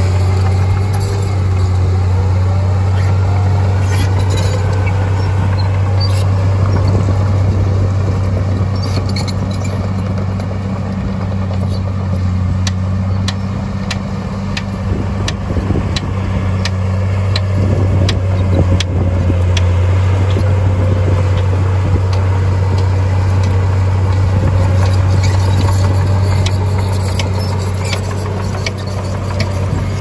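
Heavy diesel engine of earthmoving machinery running steadily with a deep hum, with scattered light metallic clicks and clinks through the middle stretch.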